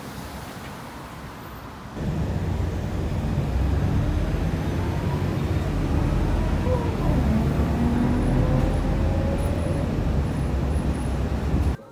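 Riding inside a city bus: a steady low engine and road rumble with a faint whine that rises and falls in pitch. It starts about two seconds in, after quieter street noise, and cuts off abruptly near the end.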